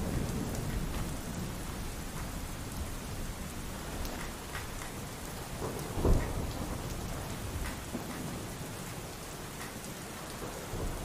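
Steady pouring rain with a low rumble of thunder that eases off over the first couple of seconds. A single dull thump about six seconds in stands out as the loudest sound.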